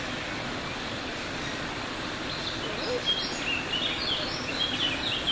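Steady rushing background noise. About two seconds in, a quick series of short, high chirps begins and keeps going.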